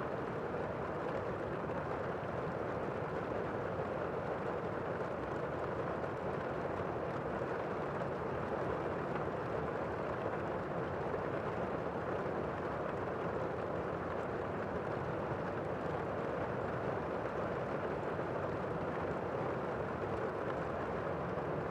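Steady rainfall, an even hiss with no breaks or changes.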